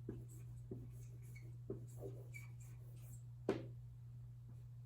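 Writing sounds: a few light, irregular taps and short strokes of a pen or marker, the loudest tap about three and a half seconds in, over a steady low hum.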